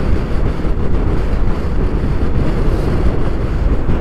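Heavy wind noise buffeting the microphone of a motorcycle riding at speed into a strong headwind, a steady low rumble.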